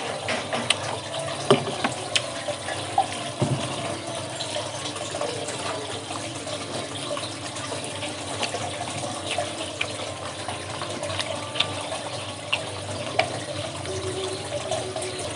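Wet eating sounds: slurping sweet-and-sour sauce and sucking clams and mussels from their shells, and chewing, with many short clicks and smacks.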